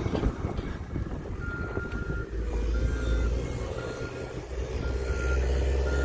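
CAT 906 compact wheel loader's diesel engine running while its reverse alarm beeps about once a second, starting a second and a half in, as the loader backs up.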